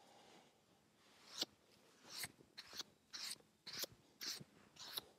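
Faint, scratchy rubbing strokes at irregular intervals, about seven of them, of a hand brushing sawdust across the freshly sawn face of a log slab.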